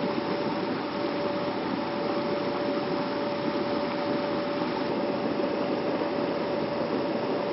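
Hot geothermal stream water running over rocks, a steady, even rushing with a faint steady hum beneath it.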